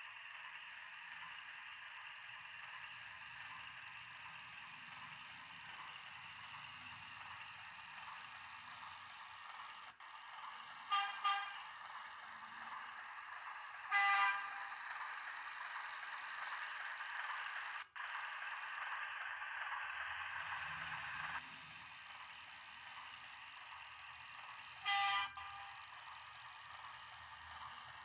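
DCC sound from a Bachmann OO gauge class 03 diesel shunter model running slowly: a steady engine sound through the loco's small speaker, broken by horn toots, a quick double toot about 11 seconds in, then single toots at about 14 and 25 seconds.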